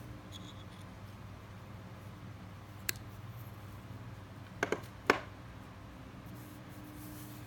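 Small diagonal cutters snip the tag end of a fishing line knotted to a hook, followed a little later by a few sharp clicks, the loudest near the middle, as the hook and line are handled. A steady low hum sits underneath.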